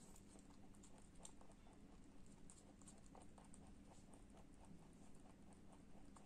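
Holland lop rabbit chewing apple: a faint, quick run of small crunching clicks, several a second.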